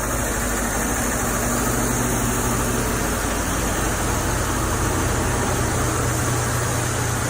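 Steady low engine hum of a car running, with an even wash of noise over it and no change in pitch or level.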